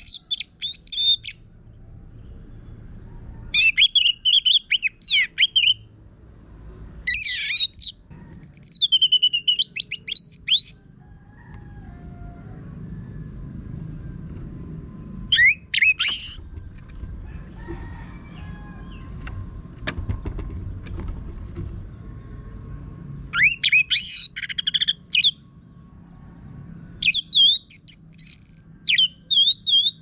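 Orange-headed thrush singing loud, rapid, varied phrases with rough, harsh notes, in bursts of a second or two every few seconds, with a longer pause midway. This is a gacor (prolific, full-voiced) song of the kind used as a lure to get other orange-headed thrushes singing.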